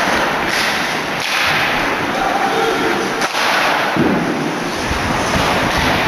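Ice hockey play in an arena: a steady loud crowd din, broken by a few sharp cracks and thuds of sticks and puck.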